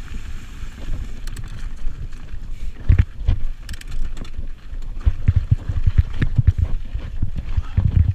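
Mountain bike riding fast down a rocky, rooty forest trail: wind rush on the microphone with a run of knocks and rattles as the tyres and frame hit rocks and roots, the knocks coming thickest about three seconds in and through the second half.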